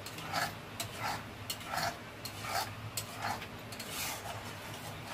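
Metal spatula scraping around a metal kadhai while stirring a thick masala paste as it fries, in repeated strokes about two a second.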